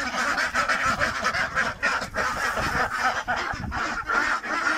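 A large flock of domestic ducks quacking over one another in a steady, continuous chorus.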